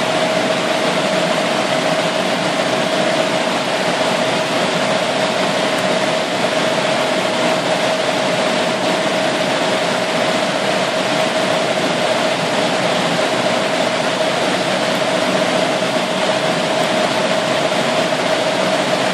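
Steady machine noise: an even hiss with one constant whining tone.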